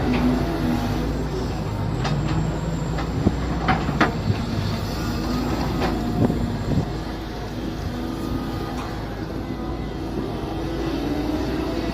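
Mini excavator engine running steadily, its pitch shifting a little under changing load as it digs. Sharp knocks come in a cluster about three to four seconds in and again around six seconds.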